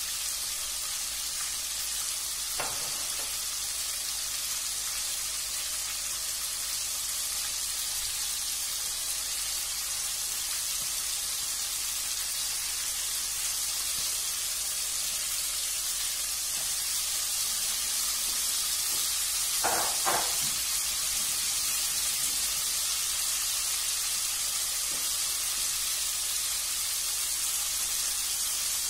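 Chicken drumsticks frying in oil in a nonstick wok, a steady sizzling hiss. Two short sharp sounds stand out, one about 3 seconds in and a louder double one about 20 seconds in.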